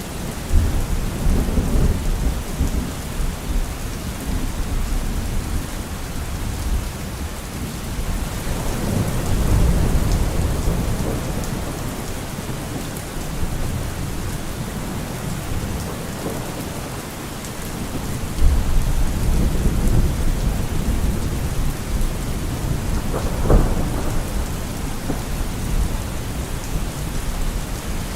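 Steady heavy rain with rolling thunder that swells and fades several times. There is one sharper crack late on.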